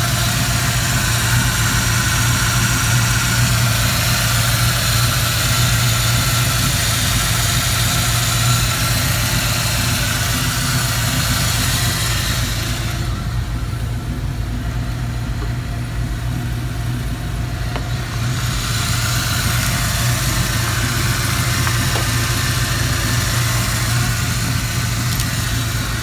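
1964 Mercury Montclair's 351 Windsor small-block V8, fuel-injected by a Holley Sniper EFI, idling steadily. The sound turns duller for a few seconds about halfway through, then returns.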